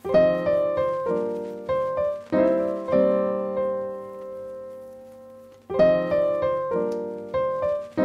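Background piano music: chords struck and left to ring and fade, with a gap of about a second and a half near the middle before the playing resumes.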